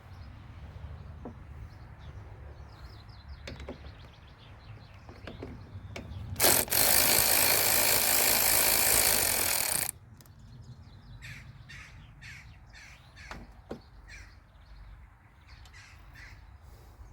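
A loud, steady hiss lasting about three and a half seconds, starting and stopping abruptly, with light clicks and knocks of hand work on the mower around it. Short repeated bird calls, like crows cawing, come in the last few seconds.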